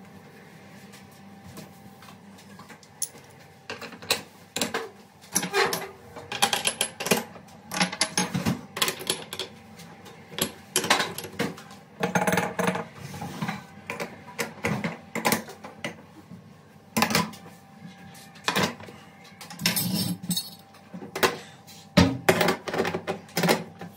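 Pan supports and burner caps clattering and clinking as they are set back, one after another, onto a glass-top gas hob. The knocks come in clusters from about four seconds in.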